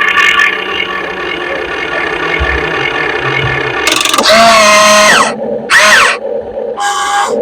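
Whine of an RC hydraulic excavator's motor and pump, steady at first, then louder from about four seconds in, with the pitch swooping up and down as the machine works.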